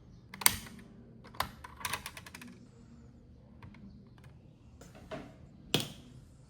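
A series of sharp plastic clicks and taps from toy pieces being handled, with a quick rattle of several clicks about two seconds in.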